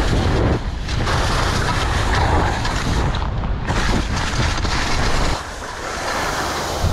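Wind rushing over a helmet-mounted action camera's microphone and skis scraping over snow on a fast downhill run. The rush dips briefly twice and drops off somewhat in the last second or so.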